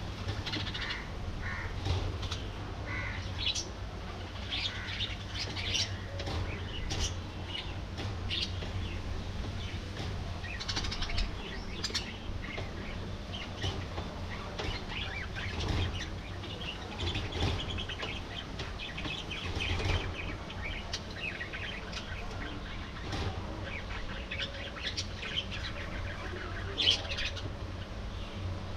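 A flock of budgerigars chirping and chattering, with many short calls overlapping throughout over a steady low rumble.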